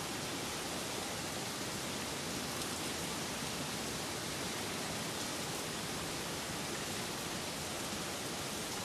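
Steady rain falling, an even hiss with no breaks or distinct drops standing out.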